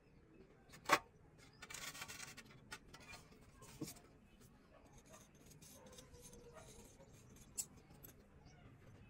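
Mason's hand tools on fresh cement plaster: a sharp tap about a second in, a short scrape soon after, then a few light ticks and faint scraping.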